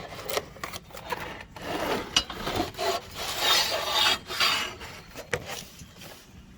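Packaging being opened and handled: irregular rubbing and rustling scrapes with a few sharp clicks as new lawn mower blades are unpacked.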